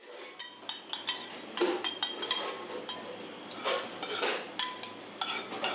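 Plates, pans and utensils clinking and clattering in a restaurant kitchen during service: a quick string of sharp clinks, many leaving a short ringing tone, with a few louder clattering bursts.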